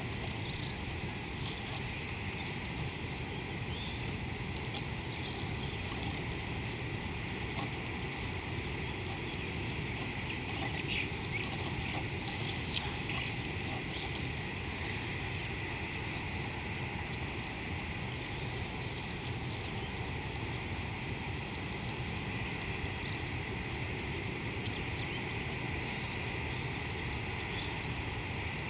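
Steady savanna ambience: a constant high buzzing drone over a low, even rumble, with a few faint, short animal calls near the middle.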